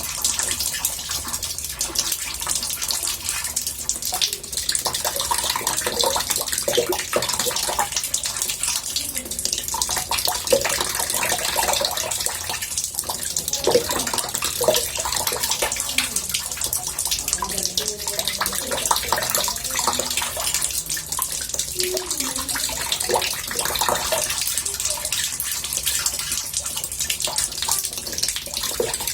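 Water running from a tap into a bathtub: a steady splashing rush with a murmur of small bubbling sounds under it.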